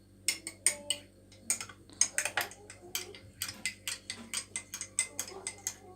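A spoon stirring ginger into a cup of hot milk, clinking against the cup in quick, uneven clicks that start just after the beginning and keep going.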